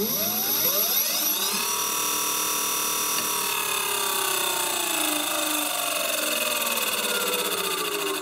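An electric scooter's brushless hub motor spinning its wheel off the ground during a dynamic-balancing test run. Its whine rises quickly over the first second and a half, holds steady, then slowly drops in pitch from about halfway through.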